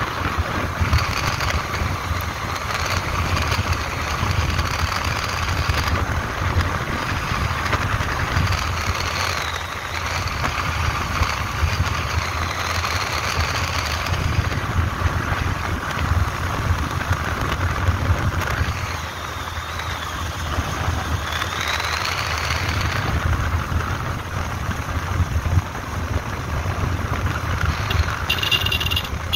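Vehicle engine running steadily while moving along a road, with low wind rumble on the microphone and a thin high whine that wavers in pitch.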